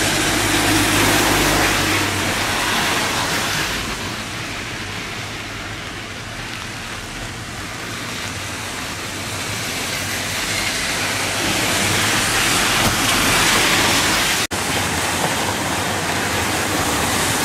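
Steady hiss of rain falling on a wet street, with the swish of car tyres on the wet road.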